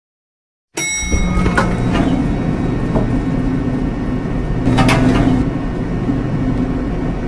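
Elevator car running with a steady low mechanical hum that starts about a second in, with a sharp knock or click twice, about a second and a half in and near five seconds in.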